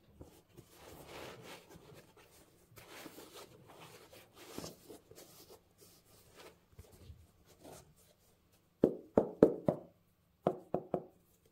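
Gloved hands rustling and rubbing over a sneaker's leather upper as it is turned. Near the end come two quick runs of about four sharp knocks each while the rubber sole is handled.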